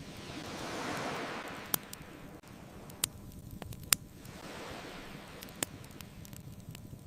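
Ocean waves washing onto the shore in two slow swells, one building to a peak about a second in and a gentler one later, with the sharp pops of a crackling wood bonfire. There are four pops, the loudest a little before halfway.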